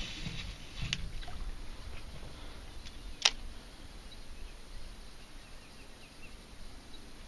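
Quiet outdoor ambience with low wind rumble on the microphone, broken by two sharp clicks: a faint one about a second in and a louder one about three seconds in.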